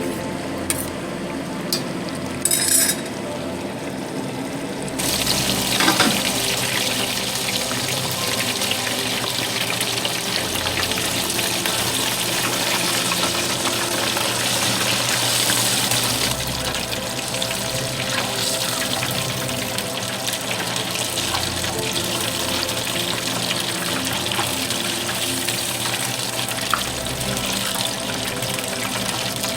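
Food frying in hot oil in a pot: a steady sizzle that starts strongly about five seconds in, with background music throughout.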